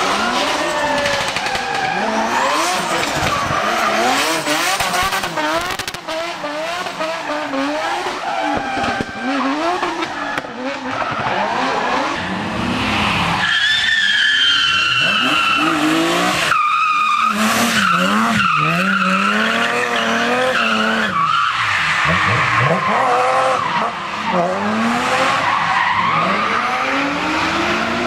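Drift car engines revving hard, their pitch swinging up and down again and again as the throttle is worked through the bends, with tyres skidding. About halfway through, a BMW 3 Series sedan drifting past gives a high tyre squeal lasting a couple of seconds.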